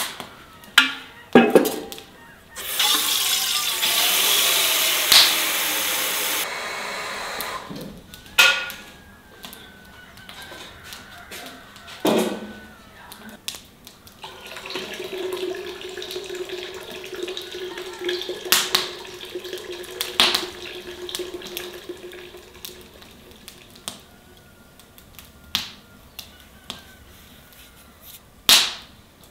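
Water poured in a rush for about five seconds, then scattered knocks and clinks of enamel kitchenware being handled. A steady low tone runs for several seconds in the middle.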